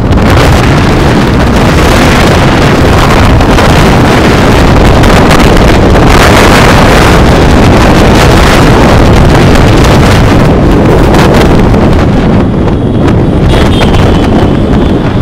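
Loud, steady wind noise buffeting the microphone of a motorcycle being ridden at speed, with the road and engine sound buried under it.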